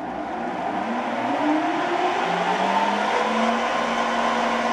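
Grizzly G0602 lathe's motor and spindle speeding up as the speed knob is turned, its whine rising in pitch and then holding steady about three seconds in, near 850 RPM, the top speed for this pulley setting.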